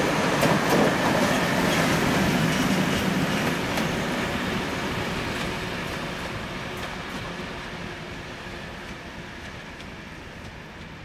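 Class 742 diesel locomotive hauling a train of wagons away: its six-cylinder ČKD diesel engine is running and the wheels clatter over the rail joints. The sound fades steadily as the train recedes.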